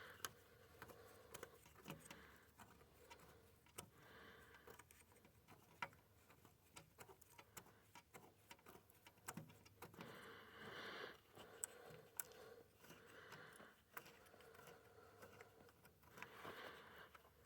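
Faint, scattered clicks and light metallic rattles of hands working a hose clamp onto a radiator hose.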